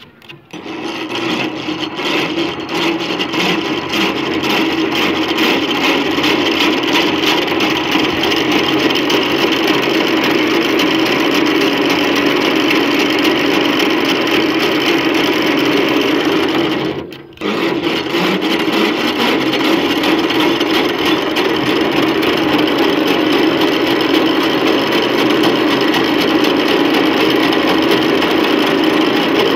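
Cotton candy machine's spinner head running at speed as it spins coloured sugar into floss: a loud, steady whirr with a fast rattle. It builds up over the first few seconds and drops out for a moment about halfway through.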